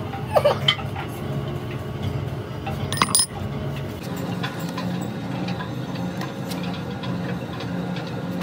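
Foundry sand being packed by hand around a metal piston pattern for a sand-cast mould: a few knocks of the rammer near the start and one sharp, ringing metallic clink about three seconds in.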